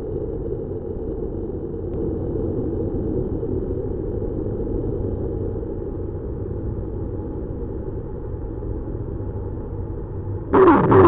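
Experimental noise music: a dense, steady low drone of noise. Near the end a sudden louder burst of noise cuts in, reaching much higher with swooping pitches.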